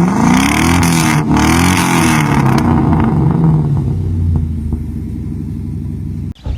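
Modified car engine revving: two quick blips rising and falling in pitch, then dropping back to a steady idle. The sound cuts off abruptly near the end.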